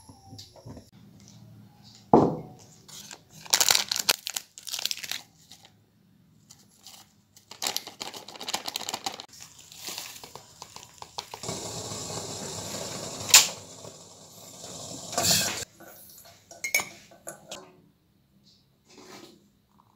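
A plastic sachet crinkling, being torn open, and its powder poured into a ceramic mug, with a few sharp clinks of a spoon against the mug.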